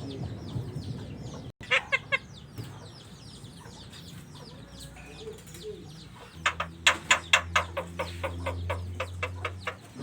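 Pet jalak starling calling: thin chirps at first, then about six seconds in a loud, rapid run of clucking notes, about five a second for some three seconds, in imitation of a chicken.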